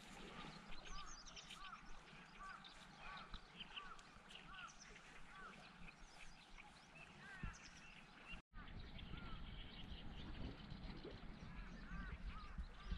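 Faint bird chirps, short arched notes repeating every half-second or so, over a light low rumble of wind. The rumble grows stronger after a brief dropout about two-thirds of the way through.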